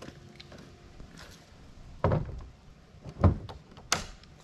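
Dull thumps and a sharp click as gear is handled on a plastic fishing kayak. The loudest thump is about three seconds in, and the click comes shortly after.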